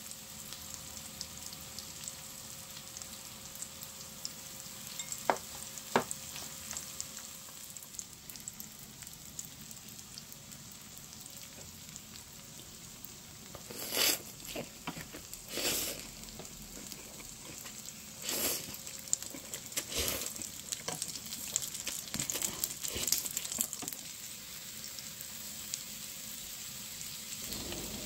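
Daechang (beef large intestine) with mushrooms and onion frying on a tabletop grill plate: a steady, fine-crackling sizzle of the meat cooking in its rendered fat. A few short, louder bursts of sizzle come in the second half.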